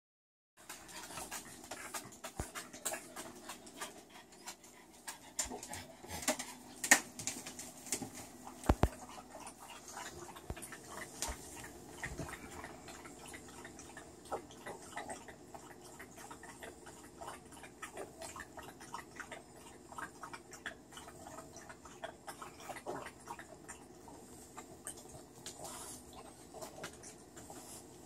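French bulldog panting, with scattered clicks and taps that are thickest in the first dozen seconds, over a steady low hum.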